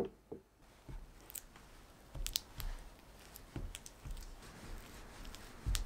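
Hands handling slices of unsalted butter and a cloth in a glass mixing bowl: scattered light clicks and rustles with a few soft thumps against the bowl.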